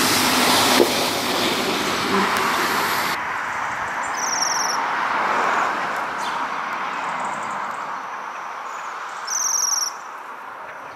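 Steady traffic noise, slowly fading, with two short, high, thin trilled calls from waxwings, one about four seconds in and one near the end.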